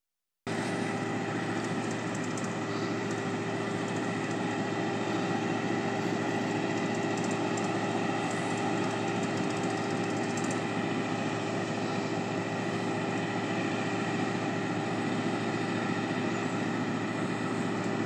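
Heavy lattice-boom crane's engine running steadily during a lift, a constant mechanical drone with several fixed tones, starting about half a second in.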